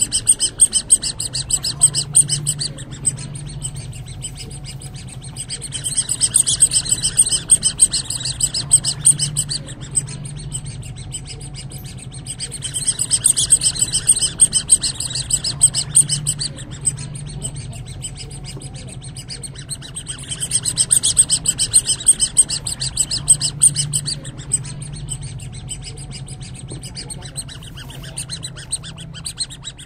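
A rapid, high-pitched chirping trill that swells and fades in regular waves about every seven seconds, over a steady low hum.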